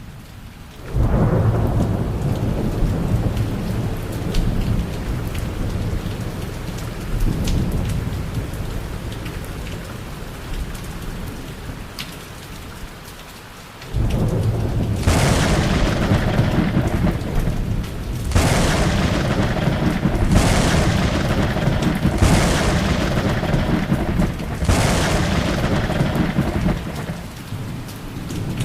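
Thunderstorm with steady rain and rumbling thunder. A loud thunder rumble breaks suddenly about a second in and fades slowly. A second, louder one starts abruptly about halfway through, followed by several sharp crackling peaks a couple of seconds apart.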